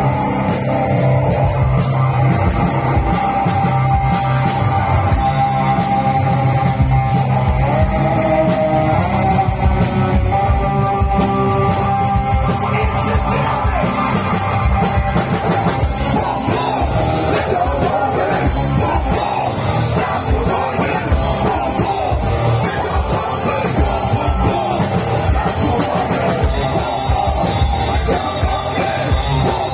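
A live rock band playing loudly, with distorted electric guitars, bass and a drum kit, while a man and a young girl sing into microphones.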